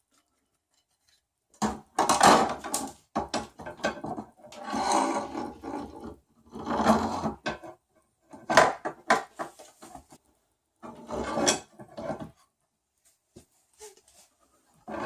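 Plastic and metal 3D-printer Z-axis parts being handled and fitted together: irregular bursts of clicking, clattering and scraping, starting after a quiet second and dying away near the end.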